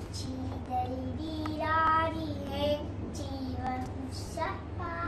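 A young child singing, a high voice moving from note to note in short phrases, over a steady low hum.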